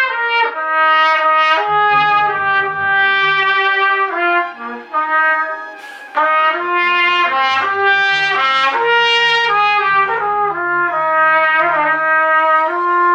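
A small trumpet-family brass horn plays a slow melody of held notes that step from one pitch to the next, with a short break about five seconds in.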